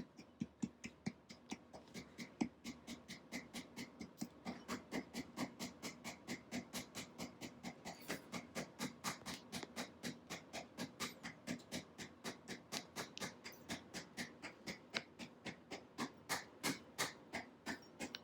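Cheese being grated by hand: quick, even scraping strokes, about four to five a second, kept up without a break.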